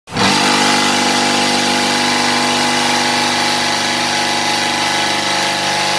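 Fully automatic fly ash brick and block making machine running with a loud, steady mechanical hum of even pitch.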